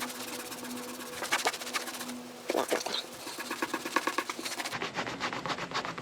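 Rapid rubbing strokes of a cloth wiping and scrubbing a Jeep Wrangler's fender surface clean, going on in quick runs.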